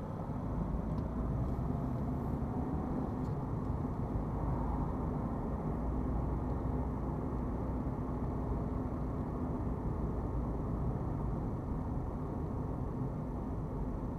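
Car interior noise picked up by a windscreen dashcam: the engine and tyres make a steady low drone as the car accelerates, with a faint rising engine note over the first few seconds.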